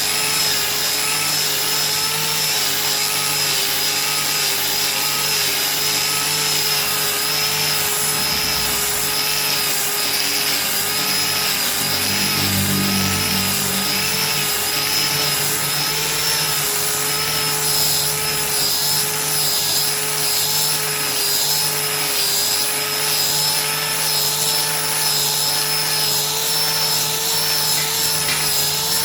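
Hand angle grinder with a sanding disc running steadily, its motor whine holding an even pitch over the rasp of the disc sanding a solid-wood chair seat.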